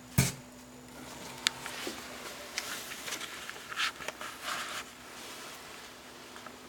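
A loud thump just after the start, then scattered clicks, rustles and footsteps of someone handling the camera and walking toward a door. A low steady hum stops about two seconds in.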